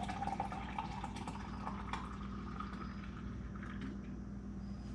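Liquid poured from a stainless steel carafe into an insulated travel tumbler. The pitch of the filling rises as the tumbler fills, and the pour tapers off about three seconds in.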